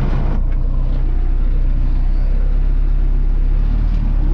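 Belarus MTZ tractor's four-cylinder diesel engine running steadily, heard from inside the cab as a constant low drone.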